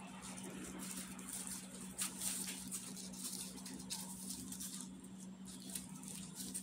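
Crinkling and rustling of loose disposable plastic gloves, with small crackles as gloved fingers pull grapes from their stems. A steady low hum runs underneath.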